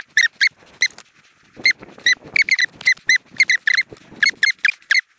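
An animal's short, high squeaky chirps, repeating irregularly several times a second, each dipping slightly in pitch. A faint rustle of handling sits beneath them in the middle.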